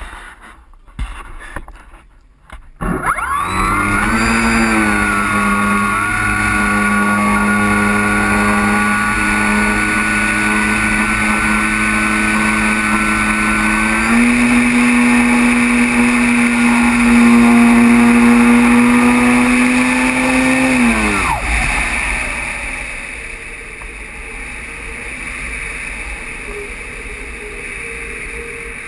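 An Art Tech Diamond 2500 RC glider's electric motor and propeller, heard from on board: a few knocks, then the motor spools up about three seconds in and runs at a steady pitch, steps up in pitch around the middle for the powered climb, then winds down and stops. Wind noise follows as the glider coasts with its propeller folded.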